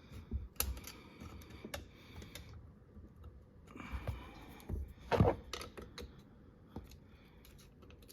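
Scattered light metallic clicks and taps of a tool working at a snap ring on the lock collar of a Demco Aluminator tow bar. One louder clack comes about five seconds in.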